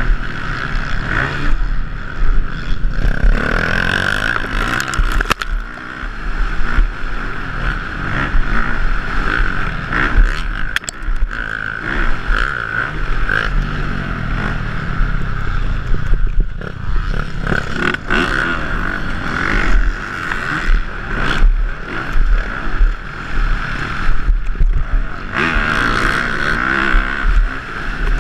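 Motocross dirt bike engine running hard under changing throttle, heard from a helmet-mounted camera, with heavy wind buffeting on the microphone and frequent thumps and jolts from the bumpy track.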